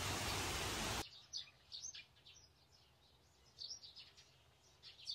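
A loud, steady hiss cuts off suddenly about a second in, leaving birds chirping: short high chirps, several times a second at moments, over a quiet background.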